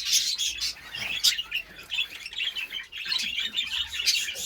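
Budgerigars chirping and chattering: a dense, continuous run of short, high chirps.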